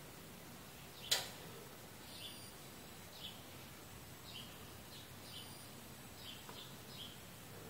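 A bird chirping faintly in the background: short, high chirps about once a second. A single sharp click comes about a second in.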